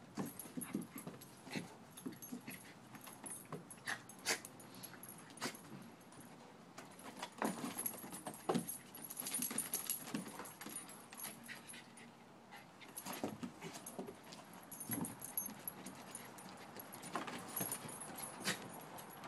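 A Siberian husky and a Shiba Inu play-wrestling: scattered short dog noises and scuffling, with sharp clicks throughout. It gets busier about 7 seconds in and again a few seconds later.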